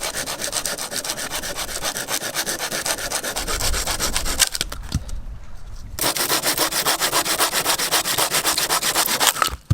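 Hand saw cutting through dead wood, quick rhythmic strokes that stop for about a second and a half midway and then resume.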